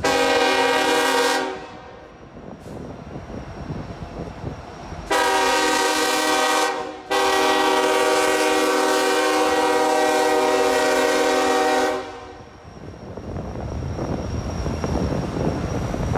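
Horn of Union Pacific SD70ACe locomotive No. 4141 sounding three blasts: a short one, then a longer one that breaks briefly and runs on for about five seconds. After the horn stops, the rumble of the train rolling past rises.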